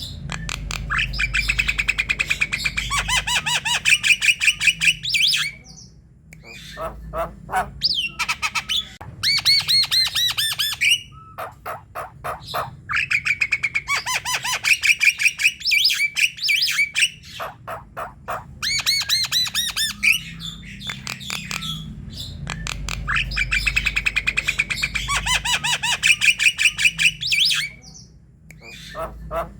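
Javan myna calling actively: long bouts of rapid, harsh chattering notes, each bout lasting several seconds, with short pauses between them.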